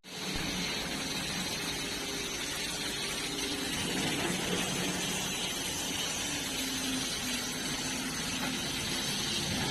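Excavator's diesel engine running steadily under a broad, even hiss, with no impacts.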